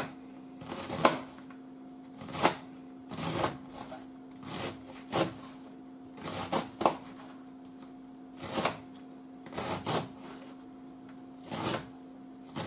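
Kitchen knife shredding a head of cabbage on a cutting board: crisp cuts at an uneven pace of about one a second. A steady low hum runs underneath.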